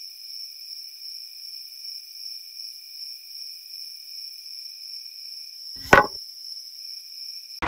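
A single sharp knock as a battery pack is set down into a small wooden trailer box, over a steady high-pitched whine.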